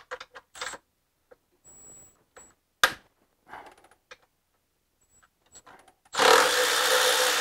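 Light tool clicks and one sharp metallic clink about three seconds in, then a power tool running hard for about two seconds near the end, turning the 16 mm bolt of the engine's belt pulley.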